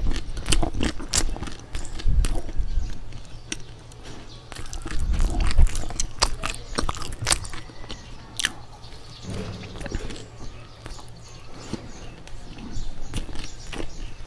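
Close-miked chewing and biting of bread, with many sharp wet mouth clicks and smacks.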